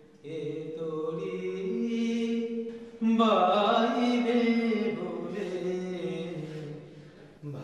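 A man singing a slow Bengali song, drawing out long held notes that slide between pitches. The second phrase starts about three seconds in, louder than the first, and fades away near the end.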